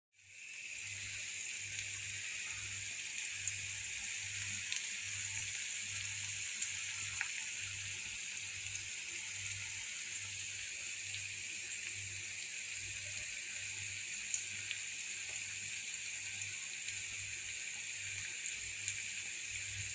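Anchovies and pea eggplant sizzling in oil in a frying pan: a steady high hiss with small scattered crackles. A faint low hum pulses beneath it about three times every two seconds.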